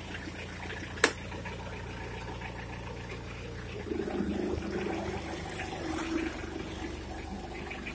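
Forklift engine idling with a steady low hum. A single sharp click comes about a second in, and from about four seconds in the noise grows rougher and louder.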